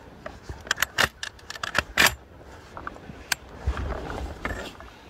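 Dry straw stubble crackling and scraping close to the microphone: a quick run of sharp clicks and rustles in the first two seconds, a single click later, then a low rumble near the end.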